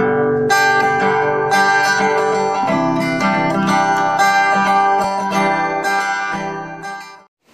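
Instrumental intro music led by a plucked acoustic guitar, notes struck in a quick even rhythm, stopping shortly before seven and a half seconds in.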